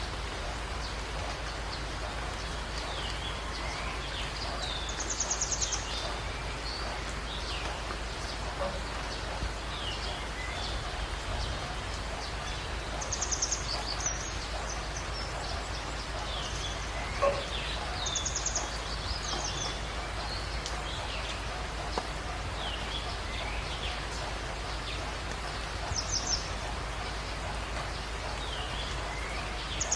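Jungle birds calling over a steady hiss of rain. One bird repeats a short, rapid, high trill every few seconds, and other birds give brief chirps between the trills.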